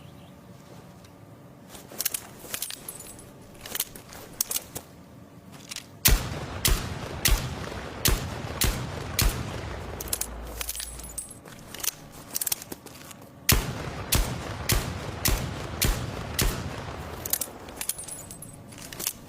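M44 revolver gunshot sound effect: a string of sharp shots at uneven spacing, starting a couple of seconds in and growing louder and denser about six seconds in, with another loud run later.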